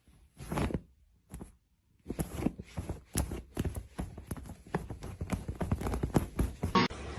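Two brief knocks, then from about two seconds in a rapid, irregular clatter of knocks and taps lasting several seconds.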